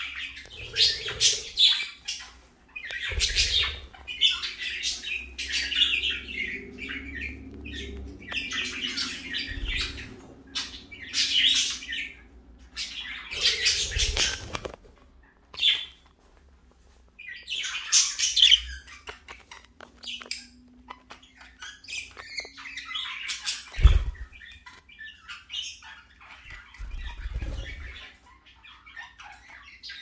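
Pet budgerigars chirping and chattering in repeated bursts of high, busy calls, with a sharp knock about two thirds of the way through.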